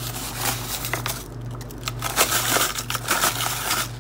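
Paper inner bag of a boxed corn muffin mix crinkling and rustling as the dry mix is poured out into a bowl, in irregular crackly strokes.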